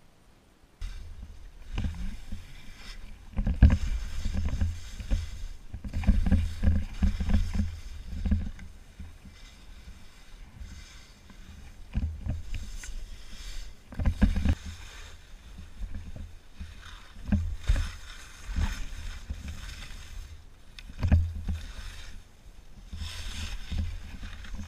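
Skiing downhill: wind buffeting the helmet camera's microphone in gusts, with skis scraping and chattering over hard snow in bursts at the turns. It starts about a second in.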